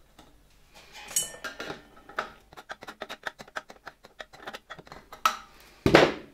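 Handle of a vintage Gamma II vacuum cleaner being screwed onto its metal housing from underneath. A screwdriver turns the screw in a quick run of small metallic ticks, with a few clinks of metal parts before it and a louder knock near the end as the cleaner body is handled.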